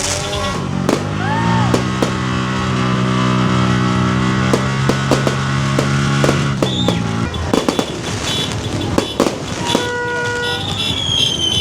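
A horn blowing one long held blast of about six seconds, with sharp firecracker cracks going off all around. A second, shorter horn toot comes near the end, followed by a high whistle.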